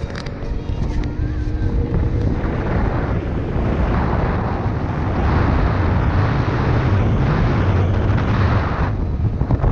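Speedboat under way: a low engine drone under rushing water and wind, with wind buffeting the microphone. The rushing grows louder about two seconds in and drops off shortly before the end.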